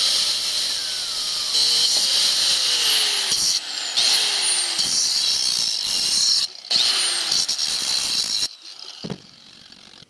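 Angle grinder with a cutoff wheel cutting the head off a bolt: a loud, high screech, with the motor's note sagging as the wheel bites and a couple of short breaks. It stops about a second and a half before the end.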